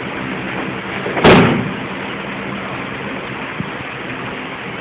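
A single loud slap and thud about a second in, a thrown aikido partner landing on the mat in a breakfall, over a steady background hum.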